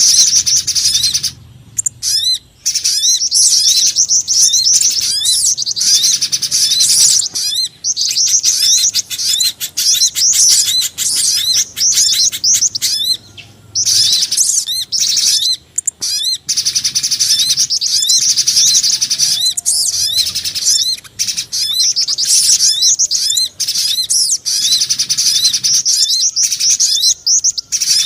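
Bird-lure recording mixing the calls of pijantung gunung (a spiderhunter), sogon and jingjing batu: fast runs of high, thin, repeated chirps that go on almost without pause, broken by short gaps every few seconds.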